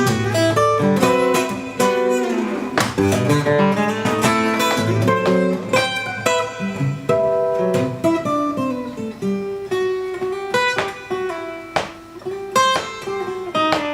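Acoustic guitar music: plucked notes and strummed chords.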